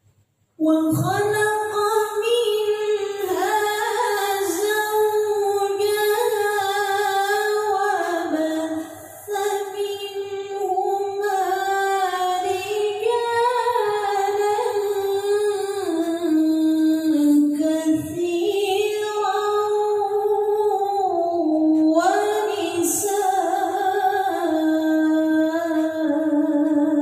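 A woman's solo voice chanting unaccompanied in the melodic style of a qoriah's Quran recitation, drawing out long ornamented notes that waver up and down. It starts about half a second in, with a brief breath pause near nine seconds.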